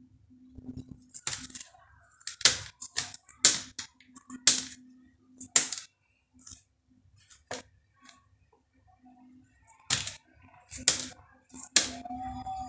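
A kitchen knife slicing a peeled banana over a plastic plate: about ten sharp clicks and taps at irregular intervals of roughly a second.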